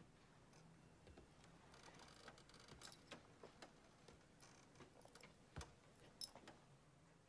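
Near silence, broken by faint, irregular clicks and ticks.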